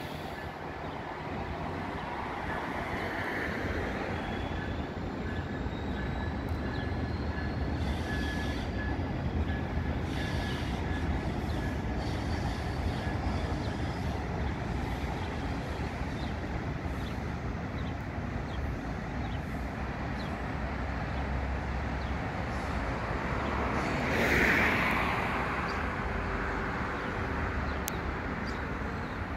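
Brightline passenger train pulling out of the station and running away, a steady low rumble of wheels on rail and locomotive. A brief louder rush of noise comes about three-quarters of the way through.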